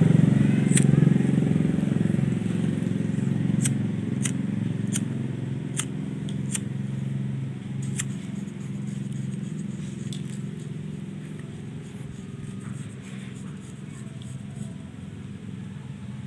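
A steady low engine hum, like a motorcycle's, slowly fading away. Sharp clicks come one at a time, about every half second to second, through the first half.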